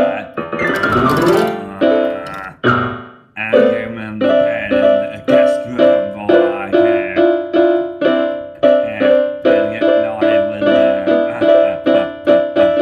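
Keyboard backing music: short electric-piano chords repeating in a steady rhythm, with a sweeping glide effect about a second in.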